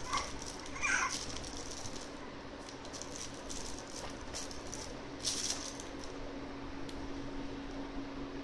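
An infant handling a Lamaze Freddie the Firefly soft toy, with a brief rustle or rattle about five seconds in. A short baby vocal sound comes about a second in, over a steady low hum.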